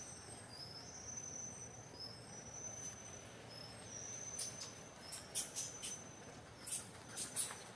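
Faint, high-pitched insects calling steadily. In the second half a quick run of short, sharp chirps breaks in.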